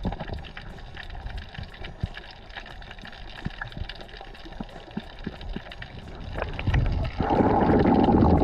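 Muffled underwater ambience picked up by an action camera below the surface, with scattered short clicks and crackles. About seven seconds in it gives way to a much louder rush of churning water and bubbles.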